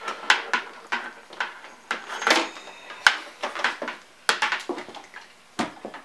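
Rubber bottom cover of a Technics 1200 turntable being handled and fitted onto the chassis, with the cords pushed through its holes: irregular clicks, taps and rubbing.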